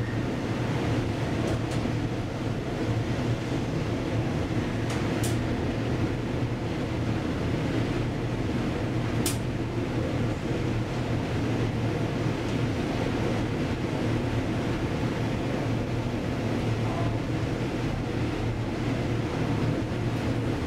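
1977 KONE inclined elevator car travelling down its sloped shaft: a steady hum and rumble, with two brief clicks about five and nine seconds in.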